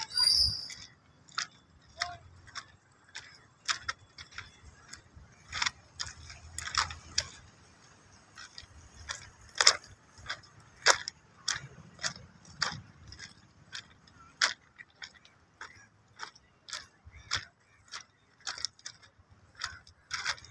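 Footsteps crunching on trackside gravel, an irregular series of short crunches about one or two a second, over a faint low rumble.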